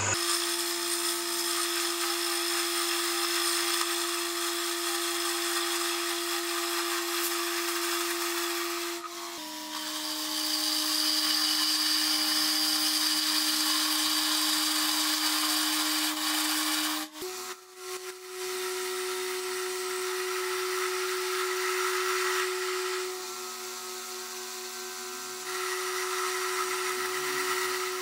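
Mini metal lathe running, its motor giving a steady whine, while the tool turns an aluminium workpiece with a hiss of cutting. The whine's pitch steps slightly about nine seconds in and again, after a brief dip, about seventeen seconds in.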